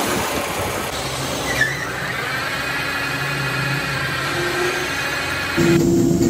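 Metalworking shop machinery running, the sound changing with each cut. First a metal lathe turning a steel stud, with a brief chirp about a second and a half in. Then a steadier machine hum with a high whine, and near the end a louder electric motor hum with a strong steady low tone.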